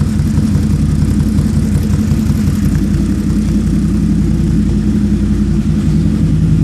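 CFMoto ZForce 800's V-twin engine idling steadily through a Two Brothers slip-on exhaust, with a deep, loud tone.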